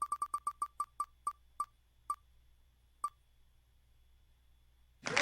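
Online wheel-of-names spinner ticking as the wheel slows to a stop. Its short electronic clicks come quickly at first, then further and further apart, and the last falls about three seconds in. A loud burst of sound starts just at the end.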